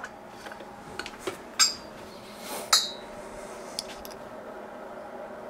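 Small metal connector parts clicking and clinking together as they are handled. There are a few light clicks, and two sharp ringing clinks come about a second and a half and just under three seconds in.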